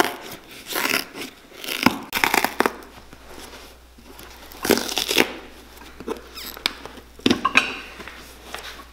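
Worn leather sole of a cowboy boot being cut and torn off for a resole with a knife and pincers: irregular scraping, cutting and ripping strokes, with a few sharper snaps.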